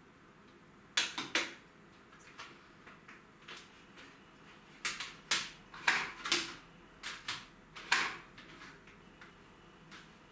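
A dozen or so sharp clicks and clacks of small hard objects being handled and set down on a kitchen counter, coming in little clusters between about one and eight seconds in.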